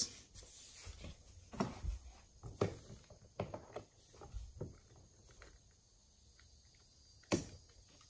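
Scattered small clicks and plastic knocks as a car door courtesy light is swapped, the new logo projector light plugged in and fitted into the bottom of the door panel. It ends with one sharp snap about seven seconds in as the light is pressed home.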